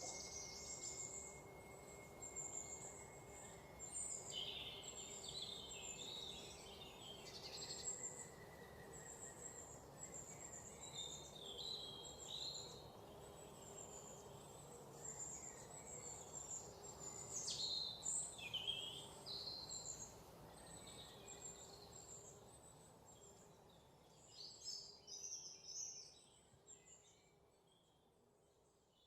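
Faint forest ambience: birds chirping and calling on and off, over a steady high insect drone for the first several seconds. The sound fades out near the end.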